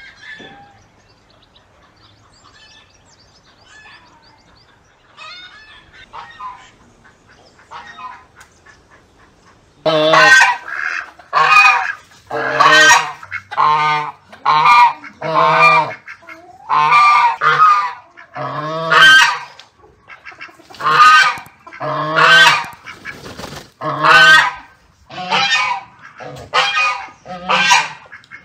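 Domestic white geese honking loudly and repeatedly, roughly one honk a second, starting about ten seconds in after a quiet stretch.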